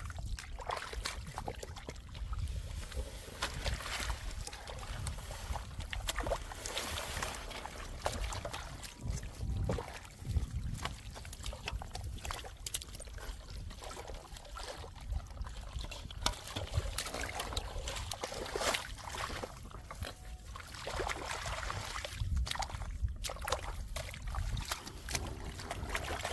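Shallow muddy water sloshing and splashing as it is stirred, with irregular small knocks and clicks throughout.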